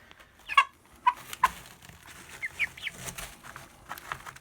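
Young chickens about seven weeks old giving a series of short peeping calls and squawks while being handled, with scratching and rustling clicks between the calls.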